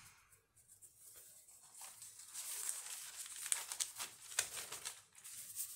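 Thin decorative paper sheets rustling and crinkling as they are lifted and turned over by hand. Faint at first, the crackling builds from about two seconds in, with a few sharper crackles in the second half.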